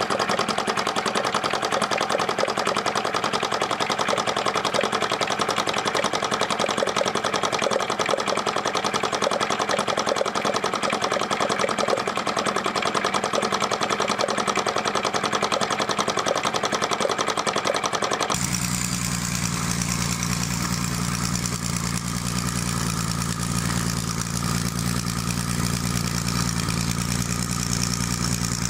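Home-built model flame-eater engine running with a fast, even clatter while driving a belt and line-shaft transmission. About 18 seconds in, this gives way to a model multi-cylinder overhead-valve engine idling with a steady low hum.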